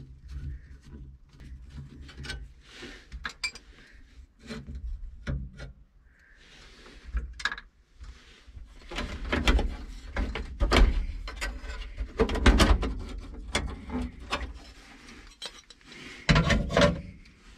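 Screwdriver and metal parts clicking, scraping and knocking under a truck's dashboard as the radio is worked loose, busiest through the middle, with a louder clatter near the end.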